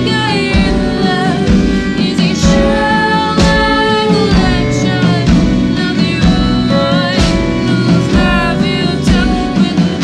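A band playing live: women singing over acoustic guitar, keyboard, violin and drums, with regular drum strikes.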